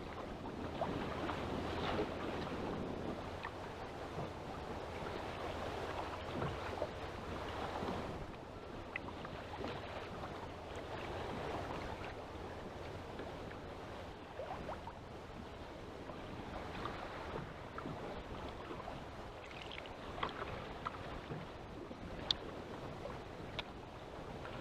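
Choppy waves sloshing against a fishing kayak's hull on rough sea, with wind noise, and a couple of short sharp clicks near the end.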